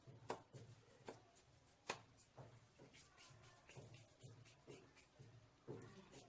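Faint handling sounds of dough being pinched off and rolled into balls between the palms, with a few soft taps and light rubbing.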